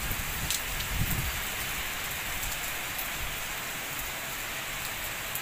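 Heavy rain falling steadily, a continuous hiss with scattered sharp taps of drops striking close by.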